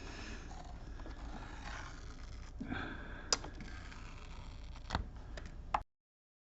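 Faint scattered clicks and light scraping of a screwdriver working a screw out of a laptop's plastic base, then the sound cuts off abruptly near the end.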